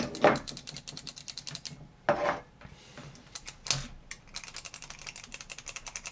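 The trigger switch of a Weller D550 soldering gun being worked over and over, a fast run of dry clicks at about ten a second, to spread freshly sprayed contact cleaner through its contacts. Two brief louder bursts of sound break the clicking about two and nearly four seconds in.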